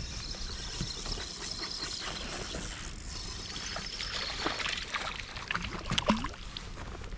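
Water splashing and trickling as a hooked bass is brought to the boat, with a cluster of sharper splashes about four to six seconds in.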